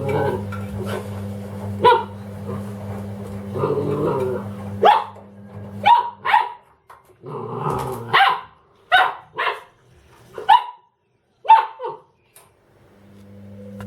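Doberman puppy barking repeatedly, about ten sharp barks with some growly stretches between them, at a washing machine. The machine's steady low hum stops about five seconds in.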